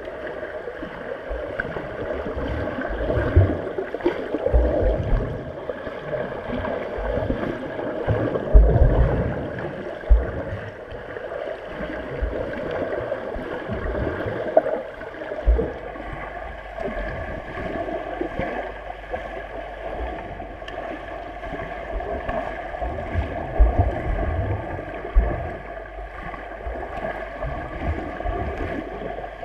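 Underwater swimming-pool sound through a submerged camera: muffled rushing and churning of water as a swimmer swims front crawl, with irregular low thumps scattered throughout.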